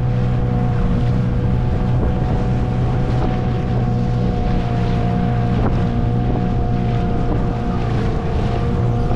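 Dinghy outboard motor running at a steady speed, a constant drone, with wind buffeting the microphone.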